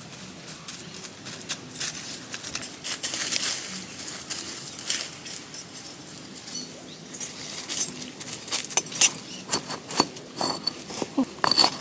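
Rustling and crackling, with sharper clicks and snaps coming thickly from about eight seconds in.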